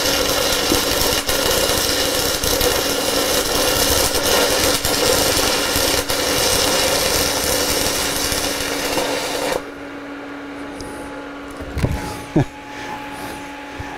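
Stick-welding arc from a 1/8-inch 7018 electrode overdriven at 215 amps, a steady dense crackle and hiss that cuts off suddenly about ten seconds in when the arc is broken; the rod is running far too hot. A low steady hum carries on after the arc stops.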